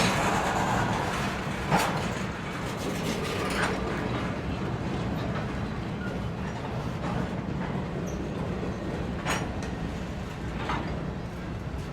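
A slow-moving train rumbling steadily along the track, with a few sharp clicks of the wheels over the rails at irregular intervals.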